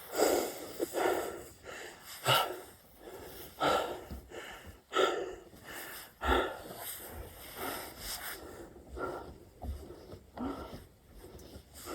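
A man's heavy, rhythmic breathing while doing burpees, hard hissing breaths about every second or so from the exertion of the reps.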